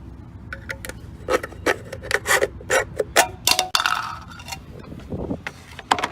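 A quick run of about a dozen sharp scrapes and clicks over a steady low hum, stopping abruptly at the end.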